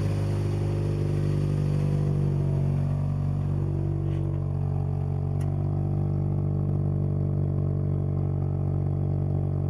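2005 Scion xB's 1.5-litre four-cylinder engine idling steadily through its newly installed exhaust system, with a few faint ticks. The owner judges that it sounds pretty good and that the exhaust leak at the engine is gone.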